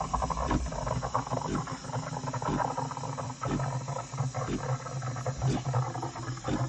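De'Longhi EC685 Dedica espresso machine's steam wand hissing and gurgling in a jug of milk as it is frothed, with irregular spluttering crackles over a steady low hum.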